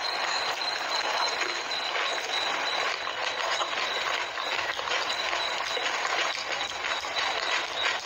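Close-miked eating of panipuri: crisp puri shells dunked in spicy water crunching and being chewed, a dense run of crackles and wet mouth sounds.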